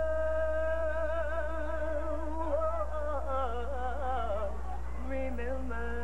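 A woman singing unaccompanied. She holds a long high note, then runs down through quick, wavering notes and ends on lower notes, over a steady low hum.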